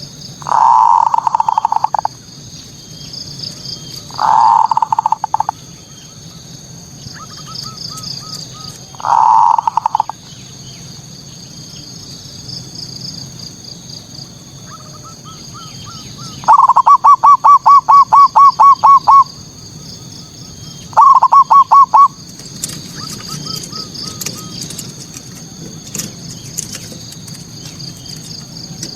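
Zebra dove (perkutut) singing its male song: three short cooing phrases in the first ten seconds, then a fast run of about a dozen staccato coos and a shorter run of the same. This is the male's perched song, used as a lure to provoke rival males. A steady high chirping runs behind it.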